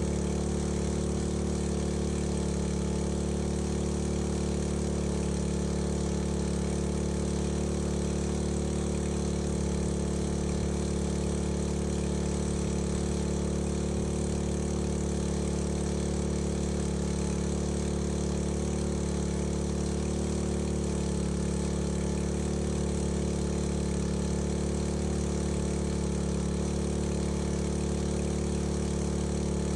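Small engine-driven fire pump running steadily at a constant speed, with no change in pitch or level.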